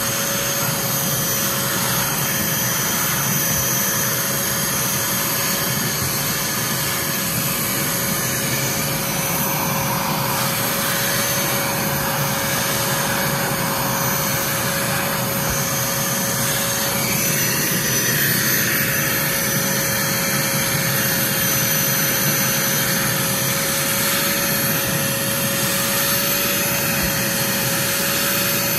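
Portable carpet extractor running steadily, its vacuum motor giving a constant whine under the rush of suction as it draws shampoo water out of the car's floor carpet.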